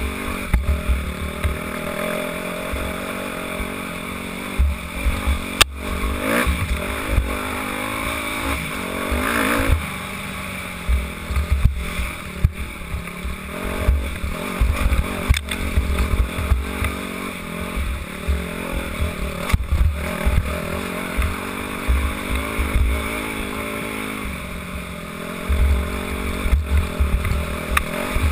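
Dirt bike engine revving up and down as it is ridden over a rough trail, heard from the rider's helmet, with heavy low rumble and a few sharp knocks from the bumps.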